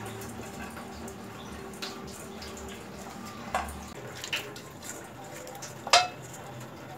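Chopped vegetables tipped from a steel colander into a steel pan of hot water, with light watery splashing. A few sharp metal clinks of the colander against the pan come through, the loudest about six seconds in.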